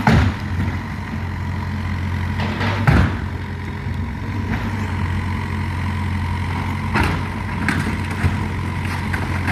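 Cat 305 mini excavator's diesel engine running steadily, with sharp knocks or crashes of demolition at the start, about three seconds in, and about seven seconds in.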